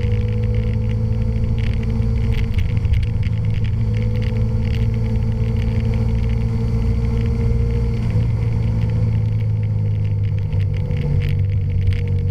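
Honda Varadero's V-twin engine running steadily at road speed, picked up by a camera fixed on the motorcycle, with its pitch dipping slightly about eight seconds in.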